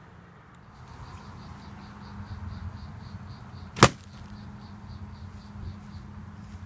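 An arrow with a hand-forged rebar broadhead shot at a target: one sharp thwack a little under four seconds in. Insects chirp in a steady rhythm of about five pulses a second behind it.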